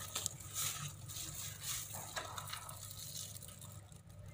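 Faint, irregular rustling of a plastic bag of bread flour being handled and set into the bowl of a plastic kitchen scale.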